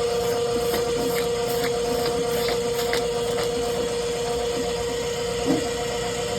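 RIDGID K-50 sectional drain-cleaning machine running steadily with a constant hum, its spinning cable ticking about twice a second in the first half, with one knock a little over five seconds in.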